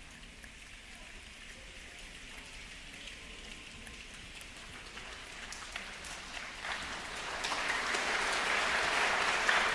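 A large audience imitating a rainstorm together: a soft, dense patter of many small clicks that grows steadily and swells into a loud, crowded clatter from about seven seconds in.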